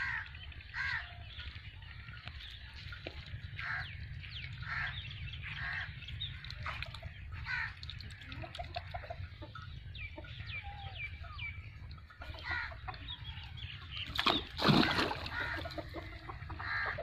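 Farmyard poultry calling: repeated short clucks and chirps throughout, with a louder call about fifteen seconds in, over a steady low rumble.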